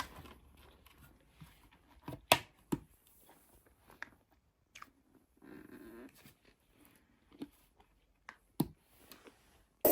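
Scattered light clicks and taps of an item being handled, two sharper knocks about two and a half seconds in and a few fainter ones later, with quiet between.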